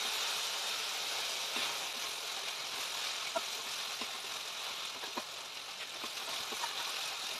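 Onion and tomato masala sizzling steadily in a stainless steel pot while a wooden spatula stirs it, with light scattered knocks of the spatula against the pot.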